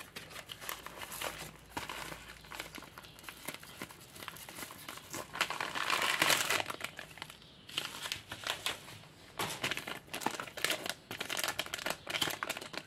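Plastic packaging crinkling and tearing as a yellow plastic mailer is ripped open and the plastic zip bags inside are handled. The crackling is dense and irregular, with short pauses, and is loudest about six seconds in.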